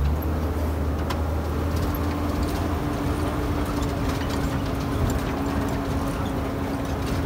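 Safari truck engine running steadily as the open-sided ride vehicle moves along: a steady low hum that eases about three seconds in, with a held steady tone above it.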